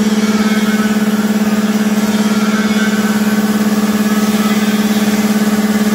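Anest Iwata oil-lubricated reciprocating air compressor running steadily: an electric motor drives the twin-cylinder pump, giving a constant hum with a rapid, even pulsing.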